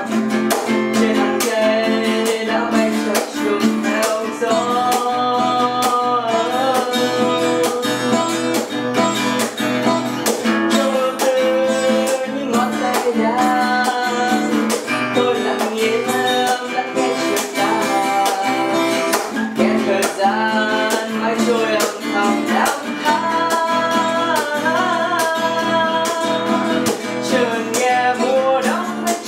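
Acoustic guitar playing a song, a moving melody over sustained chords.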